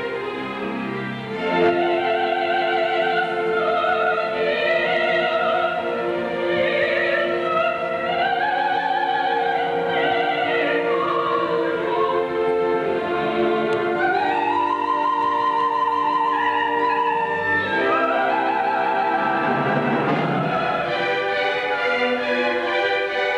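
Operatic singing with wide vibrato, in long phrases of a few seconds each, over a sustained orchestral accompaniment.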